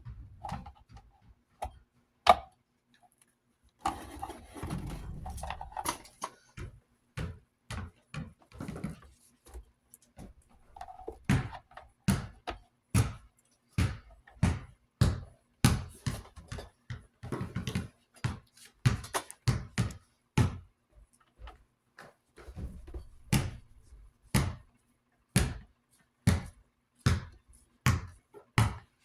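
Hard clicks and knocks of metal fan parts being handled as the fan's rear cover is fitted back on, with a stretch of rustling early and then a fairly steady run of one to two sharp clicks a second from about midway on.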